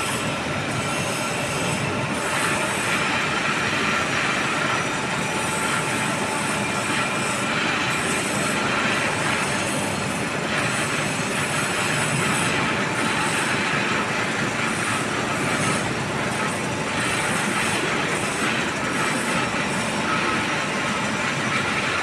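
Heavy workshop machinery running steadily: a dense mechanical noise with faint high whining tones that holds at much the same level throughout.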